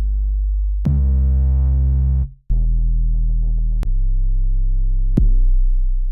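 Distorted trap 808 bass samples auditioned one after another: four deep, sustained bass notes in turn, each starting with a sharp attack and lasting about a second or so, one cut off abruptly just before the next.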